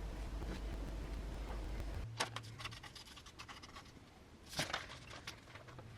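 Faint handling sounds: scattered light clicks and scratching as the iPad and its stick-on steel disc are handled, with a brief louder scrape about four and a half seconds in. The first two seconds hold only a steady low hum.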